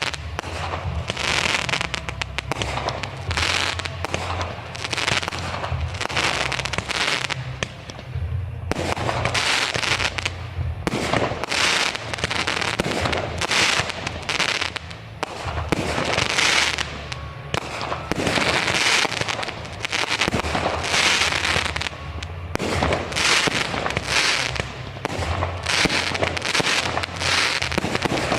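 Aerial fireworks display: a continuous run of shells bursting overhead, with sharp bangs mixed with dense crackling, several bursts each second.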